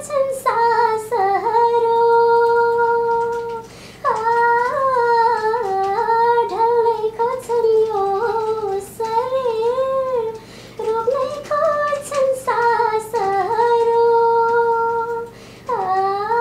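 A woman singing a song unaccompanied in a high voice, with long held notes a couple of seconds in and again near the end, and quick wavering turns of pitch between them.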